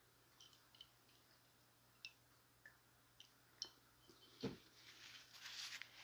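Faint, scattered wet mouth clicks and smacks from a person chewing a chicken taco, with one slightly louder click about four and a half seconds in.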